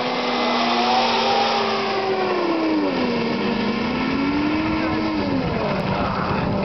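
Snowmobile engine running as the sled drives away, its pitch rising and dipping with the throttle and fading out after about five seconds.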